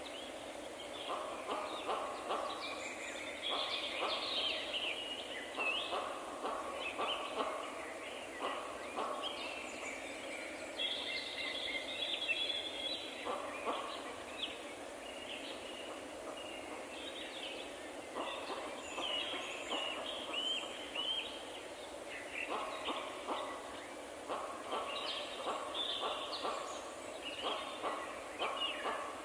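Many birds calling together: a busy stream of short chirps and whistles, with lower, rapid calls mixed in.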